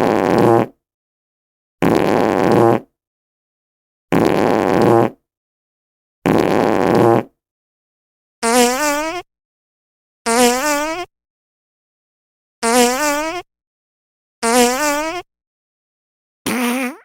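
A string of about nine fart sound effects, each under a second long and separated by silence. The first four are rough and noisy; the last five have a higher, wavering pitch.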